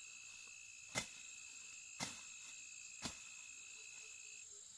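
Insects droning in a steady high tone that breaks off briefly near the end, with three sharp clicks about a second apart.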